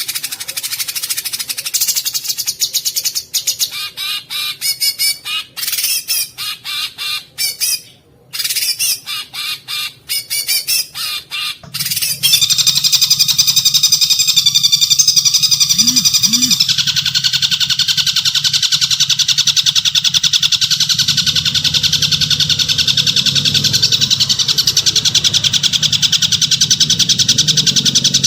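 Songbirds singing a harsh, rapid 'kasaran' training song. It starts as a choppy run of quick repeated notes with a brief break partway through, then about twelve seconds in it switches abruptly to a continuous, dense buzzing trill.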